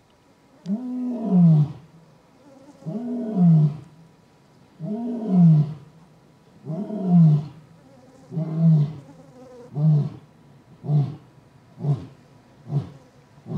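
Male lion roaring: a bout of long, deep calls about two seconds apart, each rising then falling in pitch, giving way to a run of shorter grunts that come about once a second.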